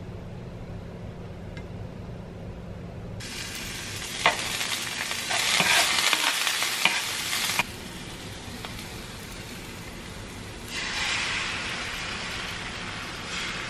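Frying pan sizzling with a few sharp utensil clicks. About eleven seconds in, a fresh sizzle starts as beaten eggs are poured into the hot pan for an omelet.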